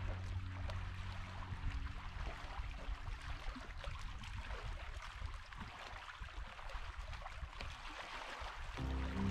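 Steady flowing water with a fine, even hiss. Soft background music with held low notes fades out in the first few seconds and returns near the end.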